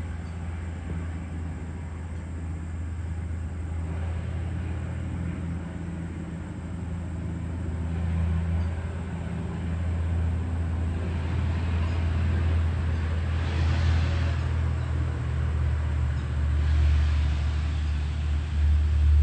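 Road traffic: a steady low rumble, with vehicles passing and swelling louder about two thirds of the way in and again near the end.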